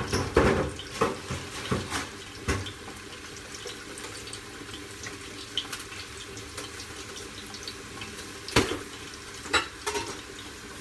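Steady, watery kitchen hiss with a few sharp knocks of pots or utensils, mostly in the first couple of seconds and twice near the end.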